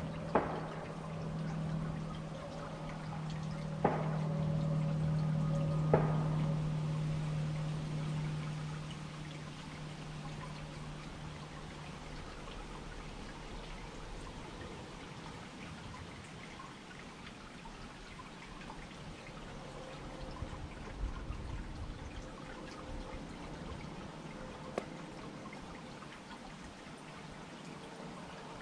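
Water trickling steadily in an outdoor pedestal fountain. A low steady hum sits under it and fades out about twelve seconds in, and three sharp clicks come in the first six seconds.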